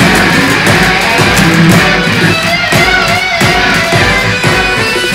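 Rock music led by electric guitar over a steady drum beat.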